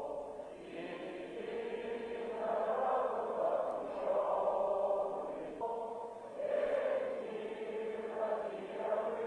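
Voices chanting in long held swells, about three of them, like a choir.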